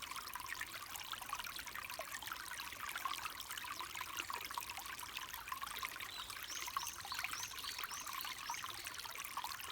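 Clear mountain stream babbling over rocks: a steady rush of water with many small splashes and trickles. A run of about eight short, high chirps sounds over it from a little past halfway to near the end.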